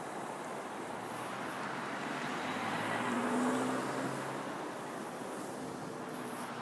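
Strong sandstorm wind blowing steadily, swelling about three seconds in, with a faint engine hum, as from a passing vehicle, under it in the middle.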